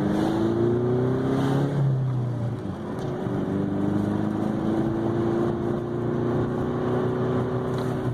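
Car engine accelerating under load with a manual gear change. The engine note climbs for about two seconds, falls as the gear changes about two and a half seconds in, then climbs slowly again in the next gear.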